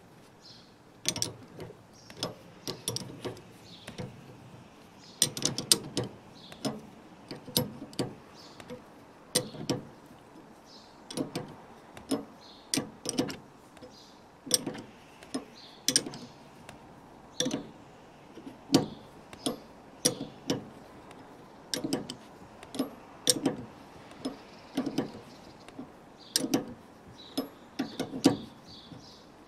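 Combination spanner clicking against the shock absorber's upper mounting nut as the nut is turned down the piston rod in short strokes, the spanner lifted off and refitted each time. Sharp metallic clicks come in small irregular clusters, roughly one or two a second.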